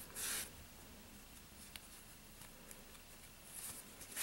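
Yarn being drawn through crocheted stitches with a blunt yarn needle while sewing on an amigurumi ear: short soft hissing rustles, one just after the start and a stronger one at the end, with a faint click between them.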